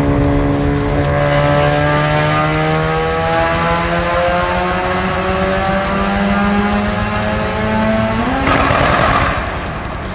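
A car engine pulling hard under acceleration, its pitch rising steadily for about eight seconds, then a sudden jump and a burst of rushing noise before the sound falls away near the end.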